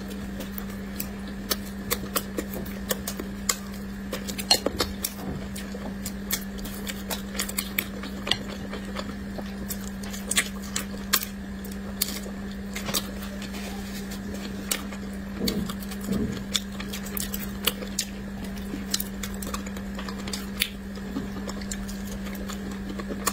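Close-miked eating sounds of a person chewing braised fish and steamed bun: irregular wet mouth clicks and smacks, several a second. A steady low hum runs underneath.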